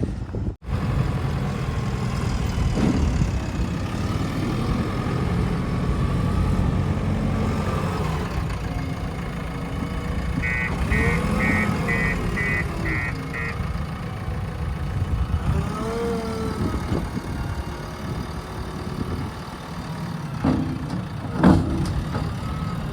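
Diesel engine of heavy machinery running steadily. A series of about seven short beeps, a little over two a second, comes around the middle, and there is a sharp knock near the end.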